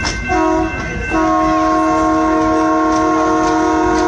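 Skunk Train's horn sounding over the rumble of the moving train. A blast cuts off at the start, a short blast follows, then a long blast is held to the end. This is the short-then-long close of a grade-crossing signal.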